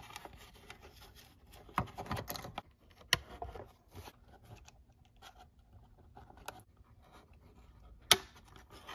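Hands handling a hard plastic RC crawler body while fitting an LED light kit: light scraping and rustling of the plastic and wires, broken by a few sharp clicks as the lights pop into their housings, the loudest near the end.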